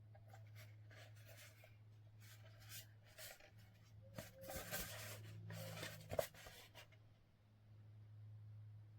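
Scratchy rubbing and scraping handling noises, in uneven strokes, with a sharp click about six seconds in, over a steady low hum.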